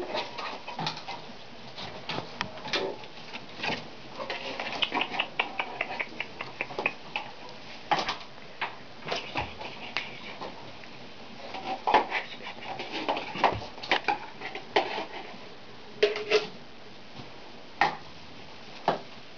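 Puppies moving about in straw close to the microphone: scattered clicks and soft rustles, with a quick run of small ticks about five to seven seconds in.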